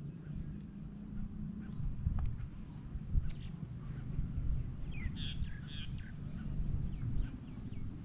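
Birds calling with short, high chirps scattered throughout, and a brief burst of louder calls about five seconds in, over a low uneven rumble of wind on the microphone.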